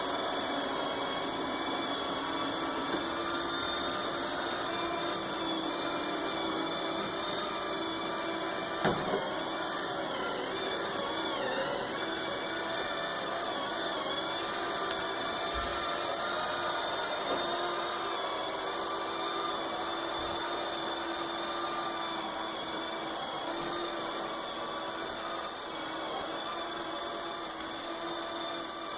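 Knockoff Roomba-style robot vacuum running with a steady whirring whine. There is a single sharp knock about nine seconds in.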